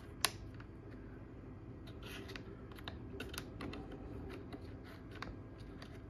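Small plastic hinge cover being pressed onto a chest fridge's plastic carry-handle bracket: a string of light plastic clicks and taps, the sharpest about a quarter second in. Under it is the low steady hum of the fridge running.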